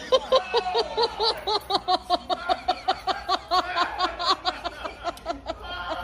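A person laughing hard: a long run of rapid "ha-ha-ha" bursts, about five a second, that tails off near the end.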